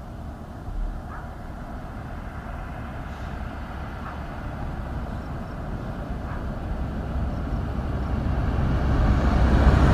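A road vehicle approaching: engine and tyre noise grows steadily louder, loudest near the end.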